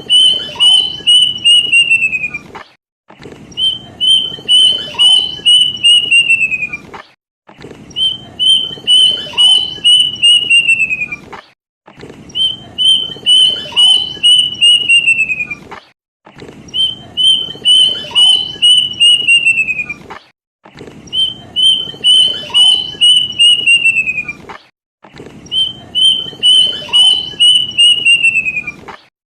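Plaintive cuckoo (kedasih) song: a phrase of about eight to ten clear whistled notes that hold one pitch, then quicken and slide downward at the end. The phrase repeats about every four and a half seconds, seven times over, as a looped lure call.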